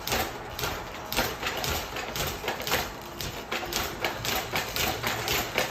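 A quick, irregular series of sharp clicks or taps, about two to four a second, coming faster toward the end.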